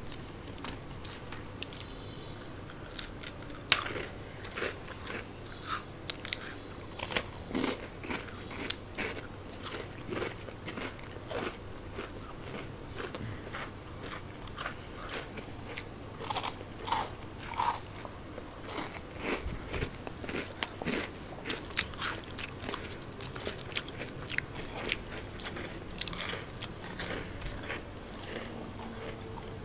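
Two people biting into and chewing crispy fried snacks topped with meat floss, close to the microphone: sharp, irregular crunches and crackles, several a second at times, with chewing between bites.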